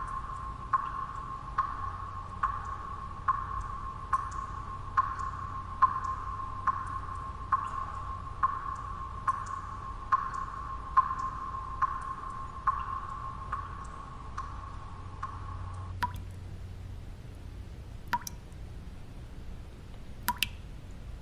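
Water drops falling at a steady pace of a little over one a second, each drop ringing at the same pitch, over a low steady background noise. About three-quarters of the way through, the regular dripping stops and three more scattered drops follow.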